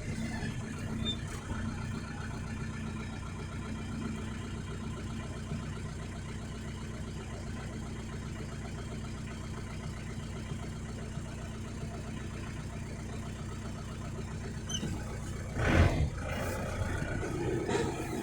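An engine running steadily, with a brief loud knock about three-quarters of the way through.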